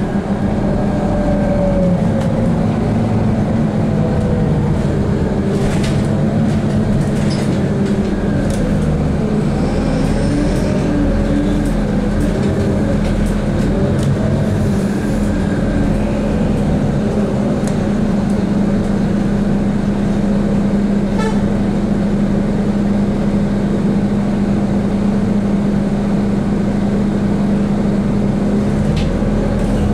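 City bus running in traffic, heard from inside the passenger cabin: a steady drivetrain hum with road rumble and a few short clicks and knocks.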